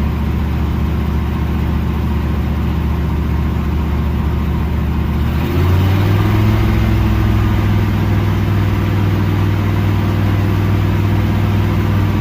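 A cold 305 H.O. small-block Chevy V8 running steadily on a held throttle, kept off idle because it dies when let go. About halfway through the engine speed steps up and holds at a higher, slightly louder steady speed.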